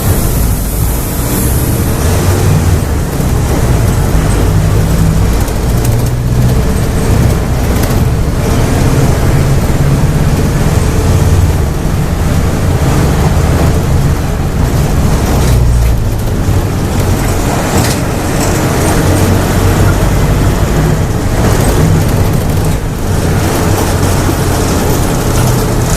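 Volksbus/MAN 17-230 OD bus diesel engine pulling hard at high revs, its note rising and falling as the bus accelerates.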